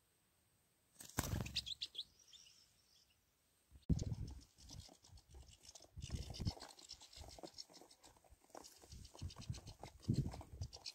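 Scratchy rustling and rubbing close to the microphone, in several bursts, as a hand holds a small bird. A few short high chirps come about a second in.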